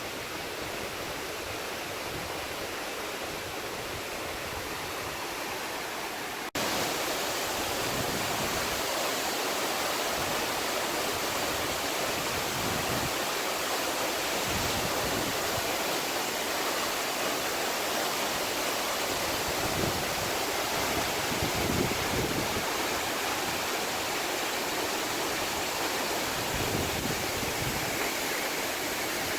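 Waterfall's rushing water, a steady even rush that steps up abruptly louder about six and a half seconds in.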